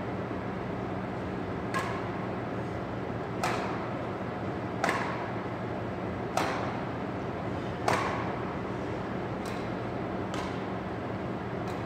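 Badminton racket strings striking a shuttlecock in a rally: sharp pops about every second and a half, five clear hits and then three fainter ones, each with a short echo off the hall. A steady hum runs underneath.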